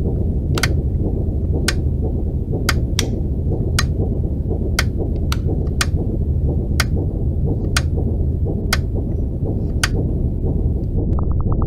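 Foley machine sounds: a steady low industrial drone with sharp, clock-like mechanical ticks roughly once a second. Near the end the ticks give way to a fast, duller clicking.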